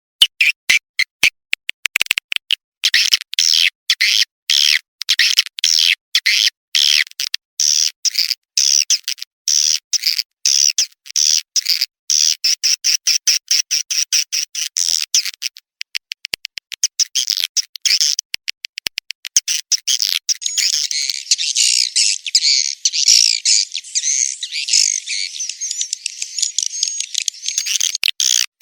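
Swiftlet call lure recording: rapid series of sharp, high swiftlet chirps that turn into a dense, continuous twittering chatter about two-thirds of the way through.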